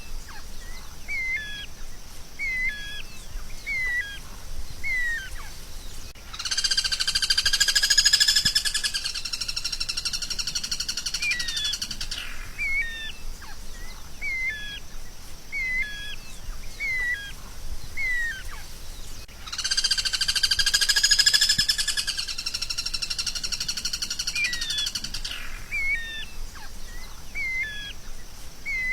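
A songbird repeating short, sharp hooked chirps about once a second, twice breaking into a long, loud buzzing trill lasting about six seconds before returning to the chirps.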